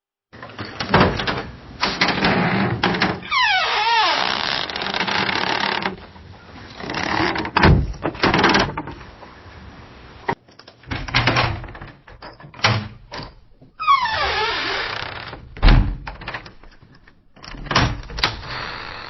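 Two door sound effects, one after the other. In each, a door's hinges creak with a wavering, gliding squeal, along with several knocks and thuds from the door and its latch. The second one starts about ten seconds in.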